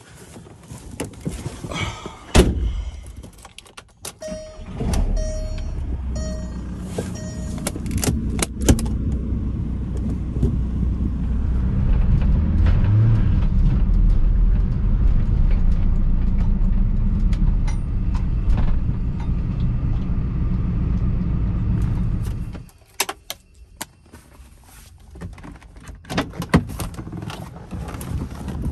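Inside a 2002 Volkswagen Beetle: a door thumps shut and the engine starts with a repeating warning chime. Engine and road noise run steady while driving, then stop suddenly when the engine is switched off, followed by clicks and knocks of keys and door handling.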